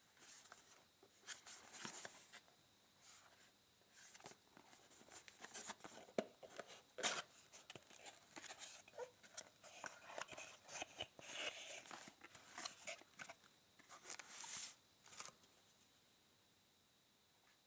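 Faint handling noise from a small cardboard toy box being opened: flaps scraping and tapping and the plastic packaging inside crinkling, in irregular rustles and clicks that stop about two seconds before the end.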